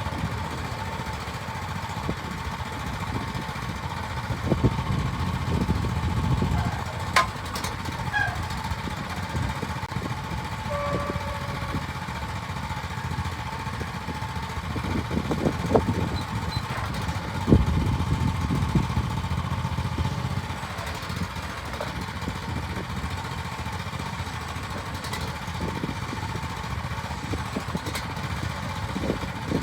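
Starvox SV-ME12 mini excavator's engine running steadily with a steady high whine alongside, swelling louder several times as the machine is worked, with a sharp click about seven seconds in.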